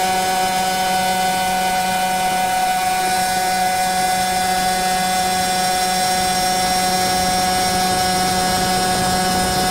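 A 100cc two-stroke laydown kart engine running at a steady, unchanging pitch, with no revving up or down.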